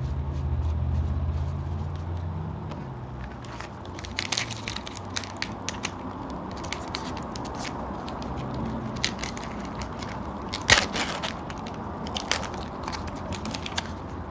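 Baseball card pack wrapper being torn open and crinkled, with irregular crackling clicks and a sharp crack about two-thirds of the way in. A low hum runs for the first few seconds.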